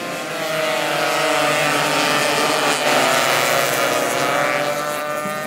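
A pack of Suzuki AX100 two-stroke single-cylinder race motorcycles passing close by, many engines buzzing at high revs together. The sound builds to its loudest about halfway through, then fades as the bikes pull away.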